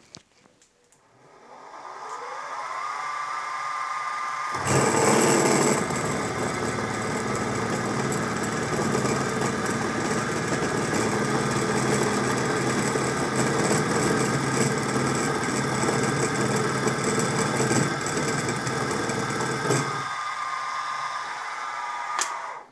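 Sieg SX2P mini mill spindle spinning up with a rising whine, then a two-flute slot drill cutting a deep pocket in a metal block, a steady cutting noise for about fifteen seconds. The cut ends near the end and the spindle whines on alone briefly before stopping.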